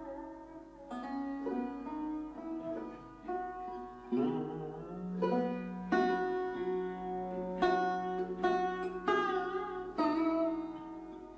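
Background instrumental music: a sitar plucking a melody, some notes bent in pitch, over a steady low drone.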